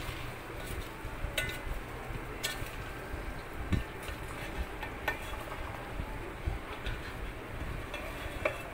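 A spatula stirring chopped okra in a metal pot, with a handful of short knocks and scrapes as it strikes the pot's side, over a low steady hum.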